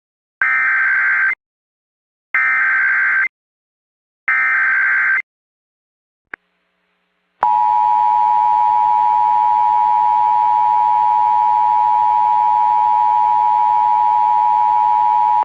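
Emergency Alert System tones: three roughly one-second bursts of SAME digital header data, about a second apart, then a brief click. About seven seconds in, the steady two-tone EAS attention signal begins and holds, announcing a child abduction emergency alert.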